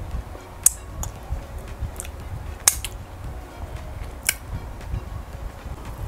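Close-miked eating sounds: four sharp, wet lip smacks and mouth clicks as fingers are sucked clean after a mouthful of fufu and okro soup, over a low background rumble.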